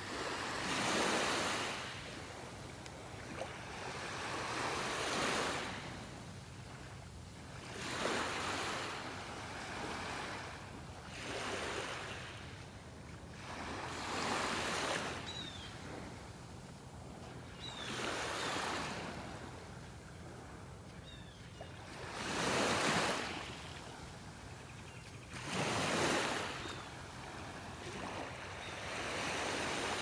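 Small waves breaking and washing up on a sandy beach, one every three to four seconds, each swelling and fading over about a second and a half.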